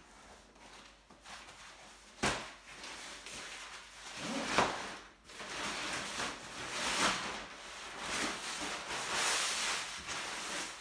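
Handling noise from props being set out: a sharp knock about two seconds in and a louder clatter about four and a half seconds in. Then several seconds of rustling from a plastic shower curtain being pulled out and unfolded.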